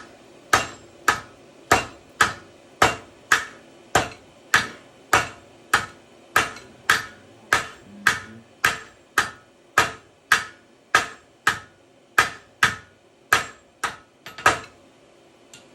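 Steady hammer blows on hot iron on an anvil while a tomahawk is forged, about two ringing strikes a second, evenly spaced. They stop about a second before the end.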